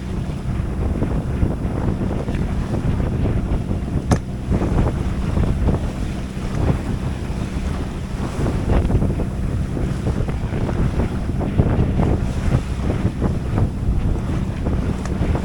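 Strong wind buffeting the microphone over the rush of waves and water along a sailboat's hull as it runs downwind in high-20s to 30-knot winds. A sharp click comes about four seconds in.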